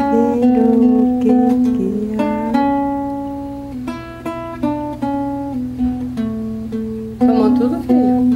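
Acoustic guitar being played: plucked notes and chords ringing out one after another, with a few notes bending in pitch.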